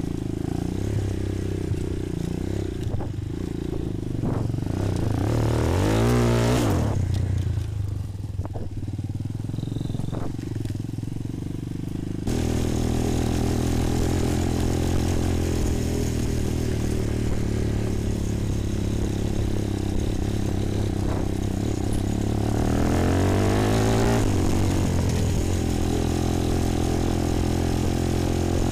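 Bashan 250 quad's single-cylinder four-stroke engine running under way, revving up with a rising pitch about six seconds in and again twice in the second half. The sound changes abruptly about twelve seconds in.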